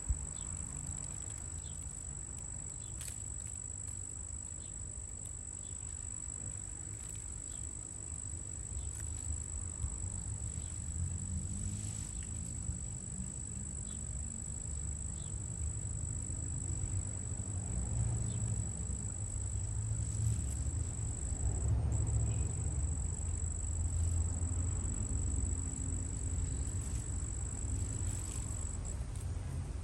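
Insect giving one steady high-pitched trill that breaks off briefly about two-thirds of the way in and stops near the end. A low rumble underneath grows louder in the second half.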